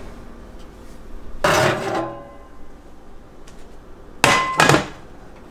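Carbon steel skillet being taken out of a hot oven. There is a clatter of metal about a second and a half in, then two sharp metallic clanks near the end that ring briefly as the pan knocks against the oven rack and stovetop.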